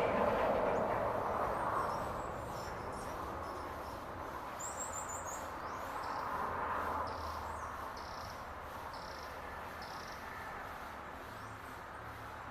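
Small birds calling with high, short chirps: a quick trill about five seconds in, then a run of about six evenly spaced short notes, over a steady low rumble of background noise.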